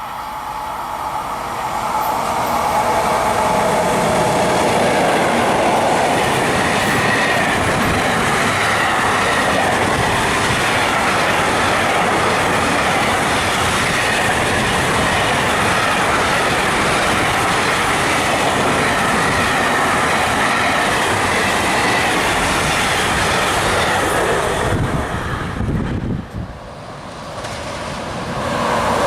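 Electric freight train passing close by, its wagons rolling over the rails in a steady loud rumble. The noise builds over the first few seconds, drops away sharply about 26 seconds in, and swells again near the end.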